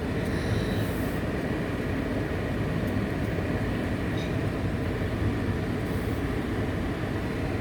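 Steady low rumble of a car heard from inside its cabin, as the car slows to a stop at a red light.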